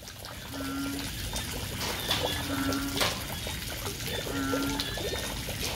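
Frogs calling after heavy rain: a low, hooting call about half a second long repeats three times, over many shorter frog chirps and a steady sound of trickling water.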